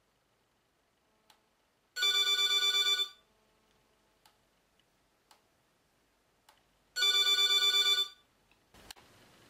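A telephone ringing twice. Each ring is about a second long with a fast trill, and the two rings come about five seconds apart.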